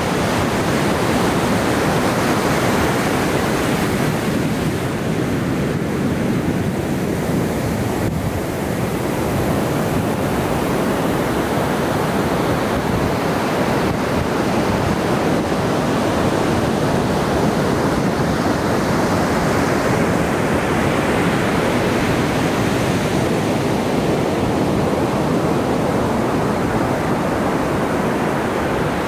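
Ocean surf breaking and washing up on a beach: a continuous rush of water that slowly swells and eases over several seconds as waves come in.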